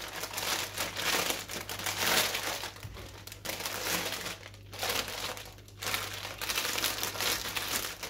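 Clear plastic packet crinkling as bundles of embroidery floss are pushed back into it and the bag is pressed flat by hand, going on and off with a few short breaks.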